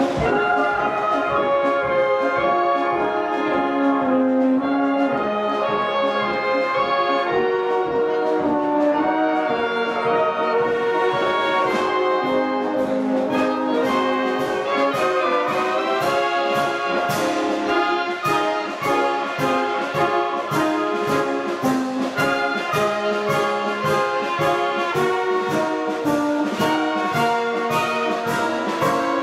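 Bavarian brass band (Blasmusik) playing oom-pah music, with tubas, clarinets and trumpets over a steady beat.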